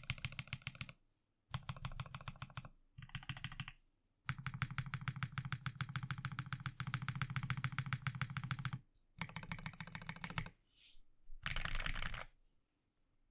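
Typing on a Cruel World CW88 LE tenkeyless mechanical keyboard with stock Duck switches, CRP R4 keycaps and a forged carbon fibre plate, gasket-mounted with no foam. It comes in several bursts of fast keystrokes with short pauses between, the longest burst lasting about four seconds near the middle.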